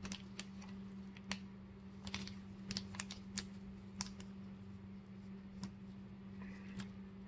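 Irregular light clicks and taps of hands handling a brake pad and a small packet of brake lubricant, over a steady low hum.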